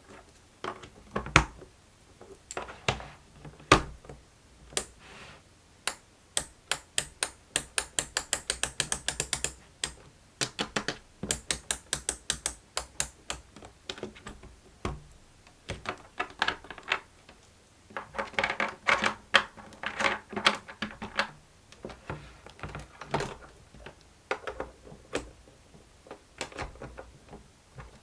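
Plastic fidget busy board being worked by hand: sharp clicks and clacks, with a quick even run of about five clicks a second for a few seconds, then scattered clusters of clicks.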